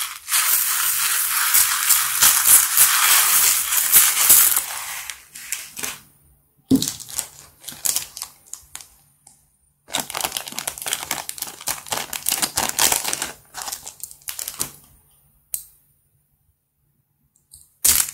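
Tiny red beads poured from a plastic cup onto a dish of slime, a dense pattering hiss for about five seconds. About ten seconds in, a small zip-lock plastic bag crinkles for several seconds as it is handled and opened.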